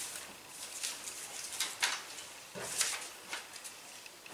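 Loose sheets of paper being handled and shuffled on a table: a few short, separate rustles.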